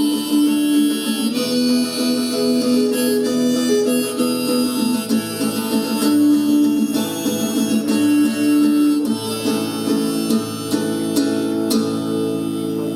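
Harmonica playing held melody notes over strummed acoustic guitar in a song's instrumental ending, easing off near the end.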